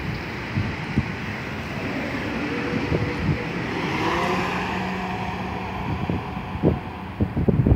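South Western Railway Class 444 Desiro electric multiple unit accelerating away from the platform: the rumble of wheels on rail with traction-motor whine rising in pitch. Wind buffets the microphone near the end.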